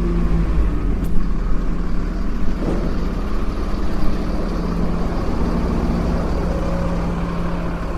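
Tow truck engine running steadily at low speed, with a sharp click about a second in.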